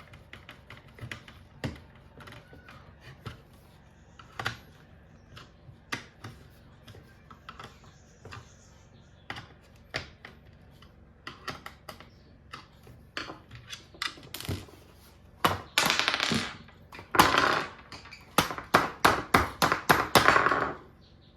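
Hand tools and small parts being handled while taking apart a cordless tyre compressor: scattered clicks and knocks, then near the end several seconds of louder scraping and rattling in quick bursts.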